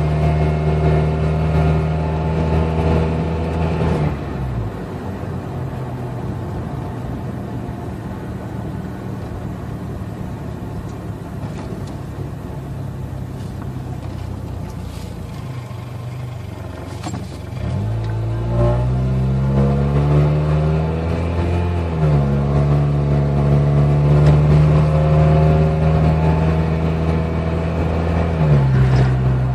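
Car engine and road noise heard from inside the cabin while driving. The engine note drops off about four seconds in and stays low and quiet while the car slows. From a little past the middle it rises steadily as the car pulls away, holds a higher steady drone, and falls back again near the end.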